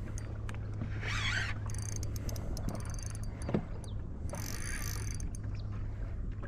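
Steady low hum of a boat's motor running, with a couple of brief hissing, buzzing bursts over it.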